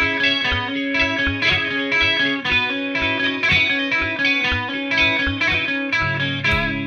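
Rock song intro: an electric guitar with effects picks a repeating pattern of notes, several a second, and a heavier low part comes in about six seconds in.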